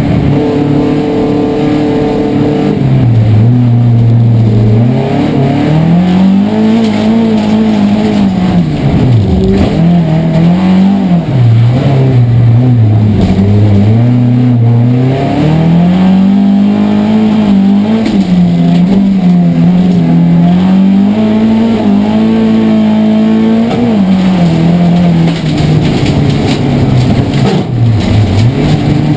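Saab rallycross car engine, fitted with individual throttle bodies, heard from inside the caged cabin under hard racing. The engine note climbs and falls over and over, with several sudden drops in pitch where the revs come off.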